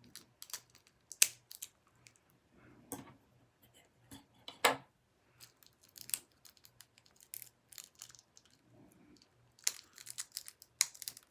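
A memory card's plastic packaging being worked open by hand: irregular sharp clicks and snaps with some crinkling, the loudest a little over a second in and near five seconds in, and a quick flurry near the end.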